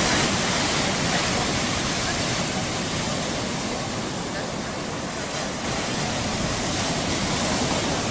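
Mediterranean surf washing onto a sandy beach, a steady rush of waves that eases slightly in the middle and builds again a little after halfway.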